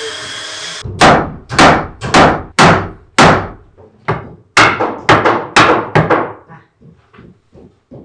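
Hammer blows on a wooden stair-railing frame, knocking its joints together: a run of sharp knocks about two a second, with lighter taps near the end. A steady hiss runs for the first second before the knocking begins.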